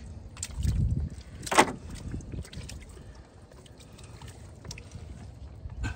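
Cast net and its catch being handled in an aluminum jon boat: a low rumble, then one sharp knock about a second and a half in, followed by faint scattered clicks and taps.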